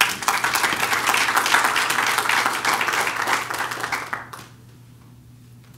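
Audience applauding: a dense spell of clapping that stops about four seconds in.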